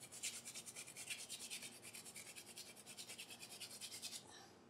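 Chayote squash being rubbed down a metal box grater in quick, even rasping strokes that stop shortly before the end.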